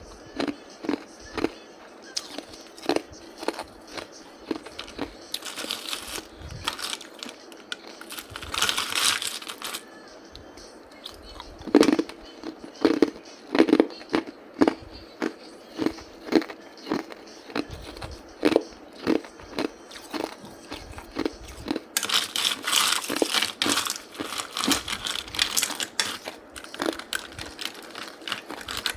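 Close-up chewing and crunching of hard ice: sharp crunches about one or two a second, with several stretches of denser, finer crackling as the ice breaks up in the mouth.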